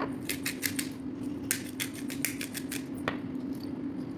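Hand pepper grinder being twisted: a quick run of dry clicks, a second run about a second and a half in, and one last click near the end. A steady low hum runs underneath.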